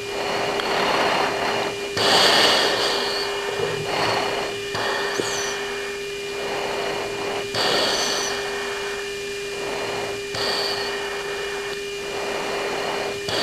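Radio static hiss on a military cockpit recording, cutting in and out in stretches of one to two seconds as the channel opens and closes, over a steady hum.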